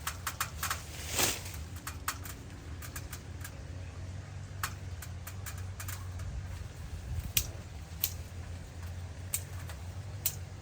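Irregular sharp clicks and snaps, one or two a second and loudest about a second in, over a steady low hum.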